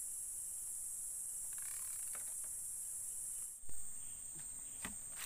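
Insects droning at a steady high pitch in the riverside forest. About three and a half seconds in there is a brief thump, after which the drone goes on in short pulses.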